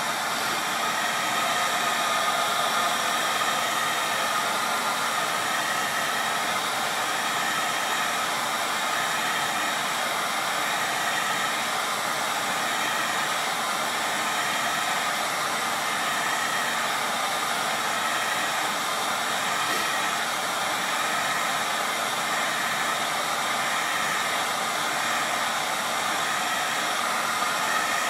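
Electric heat gun blowing hot air in a steady rush, swept back and forth over a faded plastic ATV fender to heat the plastic and bring back its colour.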